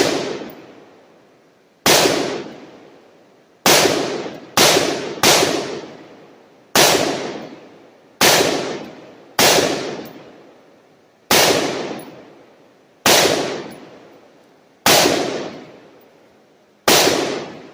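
A run of about eleven gunshots from a shoulder-fired gun, one every one to two seconds at an uneven pace, each sharp crack trailing off in a long echo.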